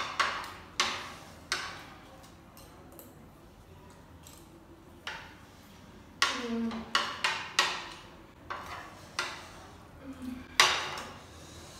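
Spoons clinking and scraping against plates while eating, in irregular sharp clinks, with a quick run of several clinks about six to eight seconds in.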